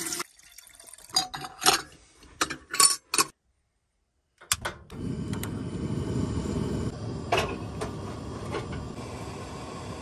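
Several sharp metal clinks of a stainless steel percolator pot and its lid being handled, then a couple of clicks and a Coleman propane camp stove burner lighting and running with a steady hiss under the pot.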